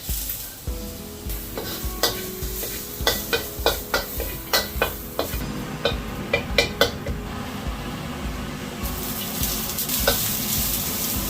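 Food sizzling in a hot pan while a utensil stirs it, knocking and clinking against the pan, with a quick run of sharp clinks between about two and seven seconds in.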